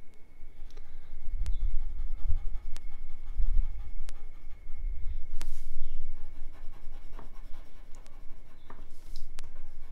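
Coloured pencil scratching on paper in quick back-and-forth shading strokes, with a few sharp ticks and a low rumble beneath. It is heaviest from about a second and a half to six seconds in.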